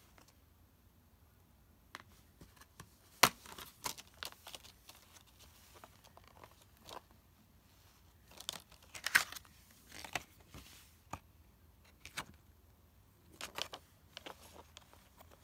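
Blue plastic Blu-ray case being opened and handled: scattered sharp plastic clicks and crinkly rustles, the sharpest about three seconds in and a cluster around nine seconds.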